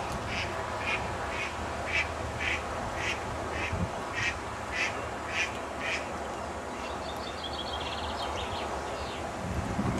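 Short nasal animal calls repeating about twice a second, then a faster chattering run of calls near the end.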